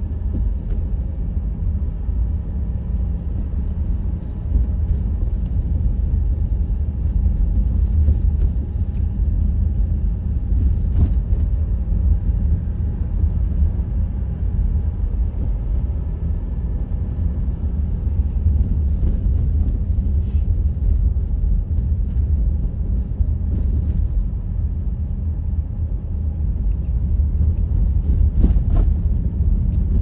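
Steady low rumble of a car on the move, its engine and tyres on a snow-covered road.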